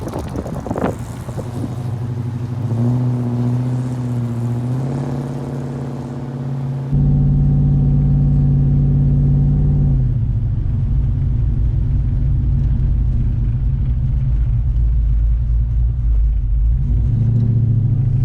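LS1 5.7-litre V8 of a VN Commodore running as the car is driven, its note climbing briefly a few seconds in and then holding steady. A heavy wind rumble on the microphone joins it from about a third of the way in.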